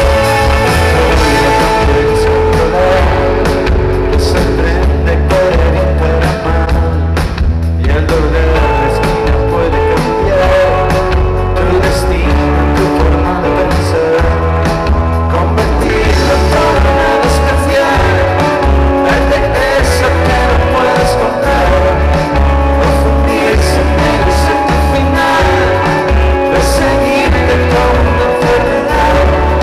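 Live rock band playing loudly and steadily, with a singer's voice over the band.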